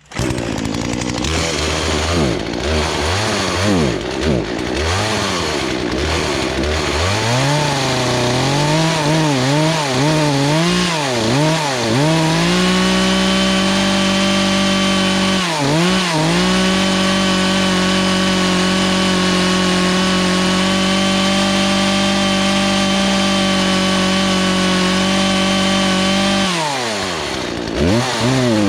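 Poulan Pro two-stroke chainsaw running, blipped up and down a few times, then held at full throttle for about fourteen seconds with one brief dip before dropping back and revving again near the end. The throttle is worked while the high-speed carburetor mixture screw is turned counterclockwise to richen a lean mixture that made the saw starve and stall at full throttle.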